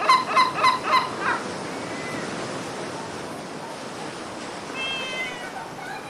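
Yellow-legged gull giving its long call: a rapid series of about six loud yelping notes, about four a second, ending a little over a second in. A fainter drawn-out call follows about five seconds in, over a steady hiss of wind.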